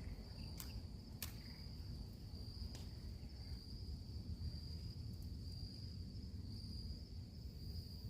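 Crickets chirping in a steady high trill, over a low rumble of wind buffeting the microphone. A few sharp clicks sound in the first three seconds.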